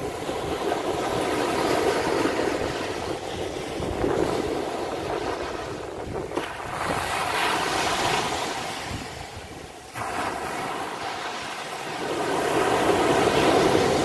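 Small waves breaking on a sandy beach and washing up the sand. The surf swells and fades every few seconds and is loudest near the end.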